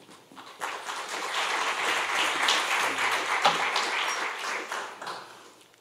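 Audience applauding: the clapping swells within the first second and dies away near the end.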